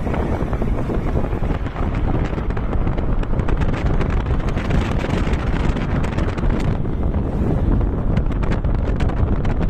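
Wind buffeting the microphone of a camera filmed from a moving vehicle, a steady rumble over road and traffic noise, with scattered light clicks in the second half.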